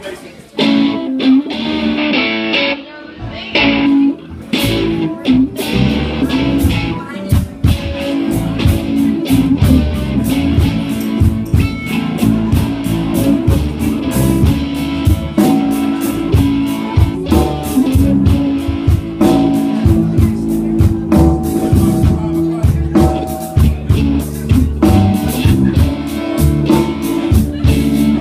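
Live blues band playing an instrumental passage on electric guitars, bass guitar and drum kit. The drums come in about four seconds in and then keep a steady beat under the guitars.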